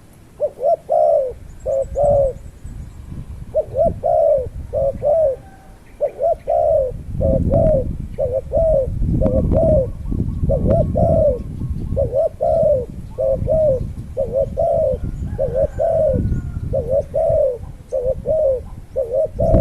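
A bird calling over and over in short, low cooing notes, about one or two a second, with a few brief pauses, over a low rumbling noise.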